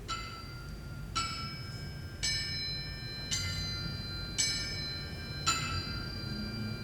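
Six evenly spaced strikes on a bell-like metal percussion instrument, about one a second, each high note ringing on and overlapping the next.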